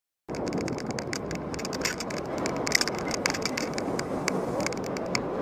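Vehicle and road noise with many scattered clicks and rattles, starting abruptly after silence.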